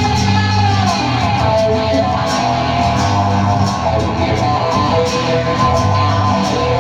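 Live band playing an instrumental break: strummed guitar over a steady bass line, with a melody held in long notes on top.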